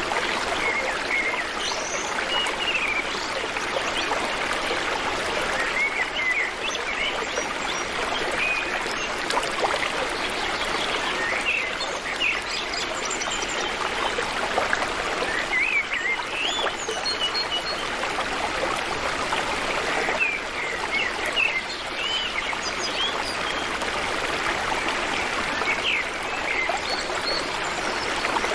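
Water flowing steadily in a stream, with birds chirping now and then throughout.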